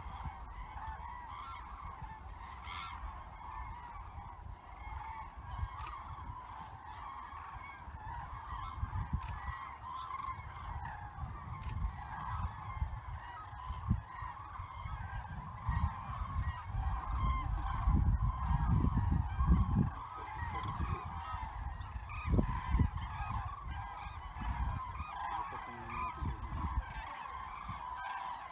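A continuous chorus of many common cranes trumpeting overhead as migrating flocks pass, with a low rumbling noise that swells a little past the middle.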